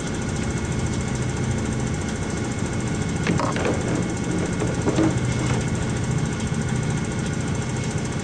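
A boat's engine running steadily at an even speed.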